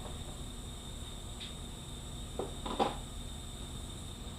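Faint taps and clicks of metal transmission parts being handled, three or so short knocks over a steady quiet background with a thin high-pitched tone.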